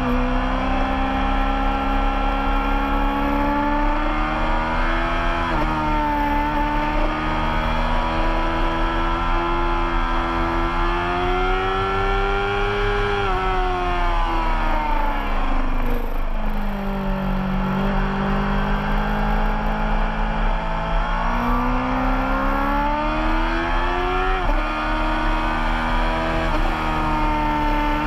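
Racing motorcycle engine at full race pace, its pitch climbing under throttle and dropping sharply at the gear changes. It falls away about halfway through as the bike slows for a corner, then climbs again through the gears.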